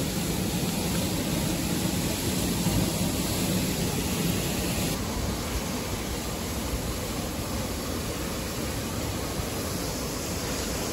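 Steady rushing noise of water pouring from a dam's discharge outlet. Its higher hiss drops slightly about five seconds in.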